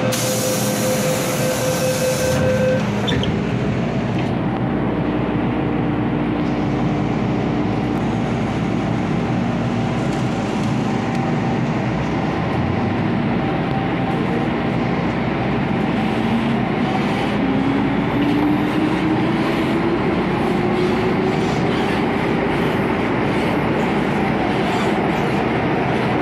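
MTR M-Train electric multiple unit running, heard from inside the carriage: a steady rumble of wheels on rail with the traction-motor whine. A high hiss cuts off about three seconds in. From about two-thirds of the way through, the motor whine climbs steadily in pitch as the train picks up speed.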